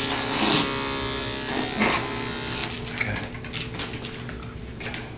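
Electric dog grooming clippers running with a steady buzz, which fades out about two and a half seconds in. Scattered clicks and scuffles follow as the dog is handled on the table.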